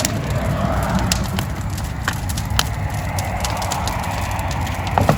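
Brush-pile bonfire crackling with scattered sharp pops, over a steady low rumble of passing road traffic.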